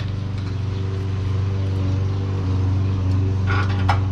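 Steady low motor hum, even in pitch throughout, with a few faint clicks near the end.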